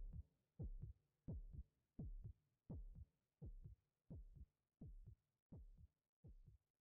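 A heartbeat, slow double lub-dub thumps about 85 a minute, fading out steadily.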